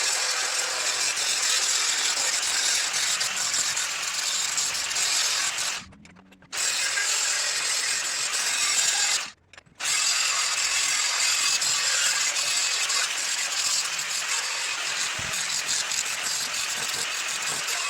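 Grinder rough-grinding forged tool steel, a steady hiss that breaks off twice for about half a second.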